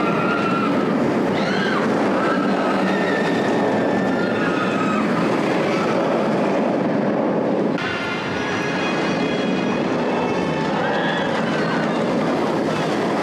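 Nemesis, a Bolliger & Mabillard inverted steel roller coaster, with its trains running on the track: a loud, continuous rumble. The sound changes abruptly about eight seconds in, and a thin high whine comes in after the change.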